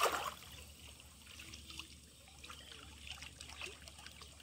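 Shallow pond water sloshing and trickling as hands grope for fish inside bamboo polo fish traps. One louder splash right at the start, then soft, scattered small splashes and drips.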